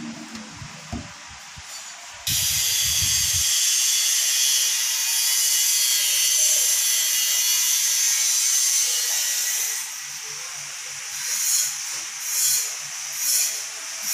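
A few light knocks as the cabinet drawer is pushed shut. Then a sudden loud, steady hiss starts and later breaks into short surges about once a second.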